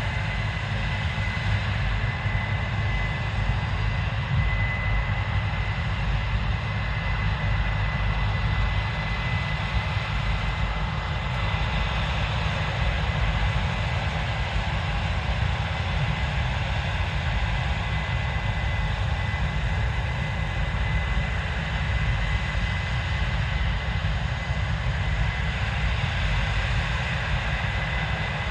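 Case IH 7230 Axial-Flow combine running steadily: a deep, even machine drone with a thin, steady high whine over it.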